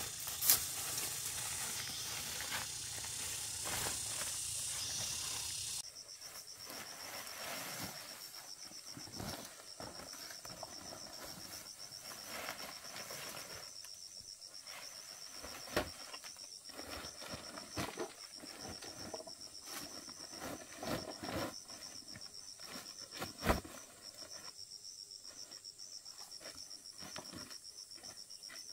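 Insects chirping in a steady, rapidly pulsing high trill, with scattered clicks and knocks, the loudest knock about two-thirds of the way through. For the first few seconds a broad rustling hiss covers everything, then cuts off abruptly.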